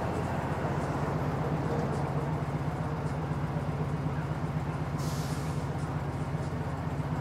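GT40 replica's engine idling with a steady, lumpy low rumble. A short hiss cuts in about five seconds in.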